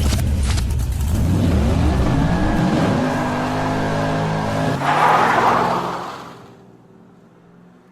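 A car engine revving hard, its pitch rising and falling in several sweeps. About five seconds in comes a loud rushing hiss, and the sound then fades away. The car is likely the Volkswagen Golf R Mk7's turbocharged 2.0-litre four-cylinder.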